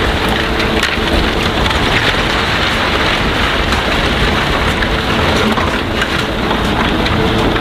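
Steady loud rushing noise of wind on the microphone over the low hum of heavy diesel recovery-truck engines running.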